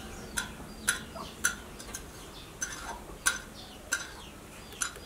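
Crested porcupine chewing hard food, its teeth crunching in sharp, irregular clicks, about seven in five seconds.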